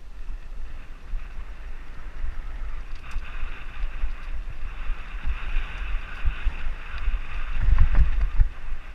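Mountain bike descending a dirt singletrack: wind rumble on the mounted camera's microphone, tyres rolling over dirt, and a run of heavy thumps as the bike hits bumps near the end.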